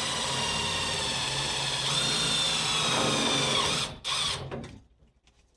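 Power drill running at speed for about four seconds, drilling a hole in the center of a recess in a plastic door panel; its pitch rises slightly about two seconds in, then it stops, with a brief second burst just after.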